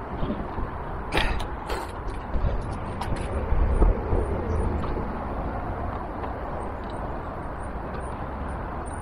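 A few sharp clicks and knocks of a metal and plastic top-box mounting plate being handled, over a low rumble that swells near the middle.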